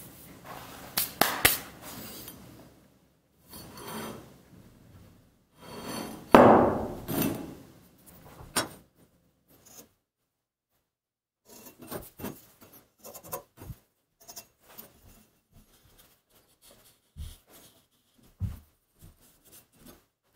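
Flat steel knife blank and a steel ruler being handled on a wooden workbench: sharp metal knocks and scraping as they are set down and slid, the loudest knock about six seconds in. After a short pause comes a run of light clicks and taps as the blank is measured and marked out.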